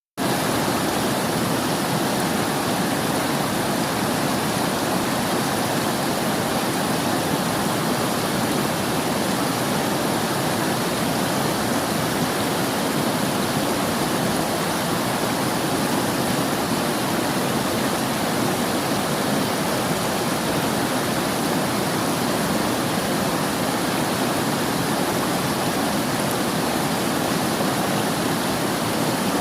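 River water rushing and burbling in a steady, unbroken flow.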